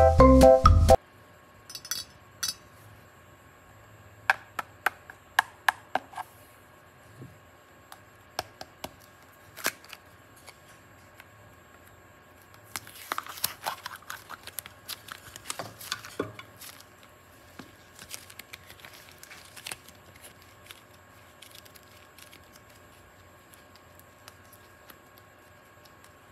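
Light taps and clicks of small hard objects being handled, with a denser stretch of crackly rustling about halfway through. A short bit of music ends about a second in.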